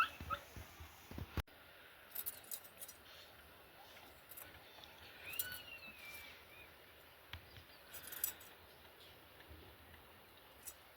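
Quiet outdoor ambience with scattered light clicks and taps, and one short chirp that rises and falls about five seconds in.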